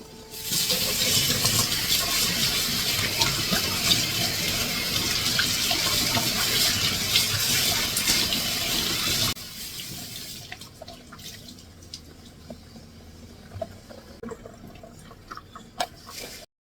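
Running water, starting about half a second in and cut off suddenly after about nine seconds, followed by faint clicks and knocks.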